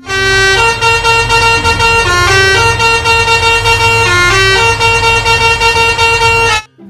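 Loud musical vehicle horn playing a short tune of long held notes that step up and down in pitch, over a low rumble; it cuts off suddenly near the end.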